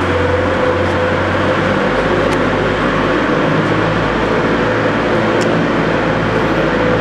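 Steady, loud hum and hiss of constant background machine noise, with a faint steady whine running through it; a couple of faint light clicks.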